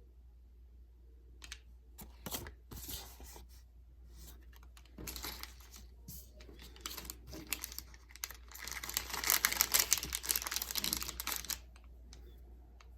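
Handling of small 3D-printed plastic snap caps and their crinkly plastic packaging: scattered light clicks, then a few seconds of crinkling and rustling from about eight and a half seconds in.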